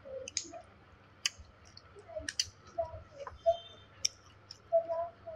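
Eating sounds close to the microphone: irregular short, wet mouth clicks and smacks of chewing.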